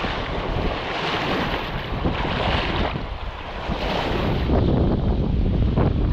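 Choppy loch waves washing and splashing over the shoreline, with wind buffeting the microphone. About four and a half seconds in, a heavy low wind rumble on the microphone takes over and grows louder.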